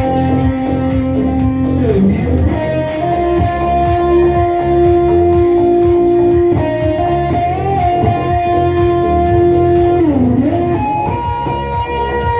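A band playing live: an electric guitar holds long lead notes with pitch bends, over bass and a steady beat.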